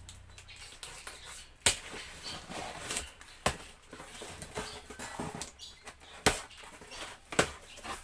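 Cardboard carton being opened by hand: packing tape torn and scraped along the top seam and the flaps pulled open. Irregular rustling and scraping, with a few sharp snaps.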